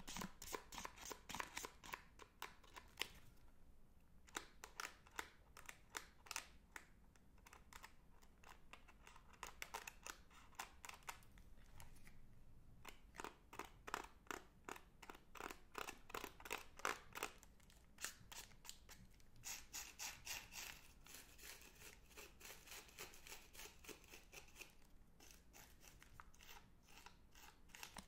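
Magnum chocolate bar wrappers crinkled and rustled close to the microphone: a dense run of sharp crackles with a few short pauses.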